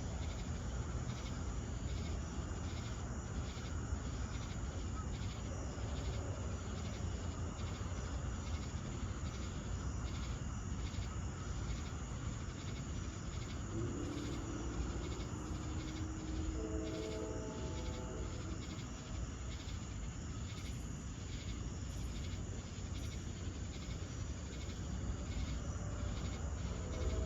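A summer night chorus of insects, mainly crickets, pulsing steadily, with a brief lower-pitched call with several stacked tones around the middle and a steady low hum underneath.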